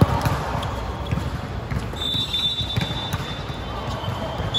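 A volleyball hit with a sharp smack, then a referee's whistle, one short high blast about two seconds in, with another starting just at the end. Players' voices and court noise go on underneath.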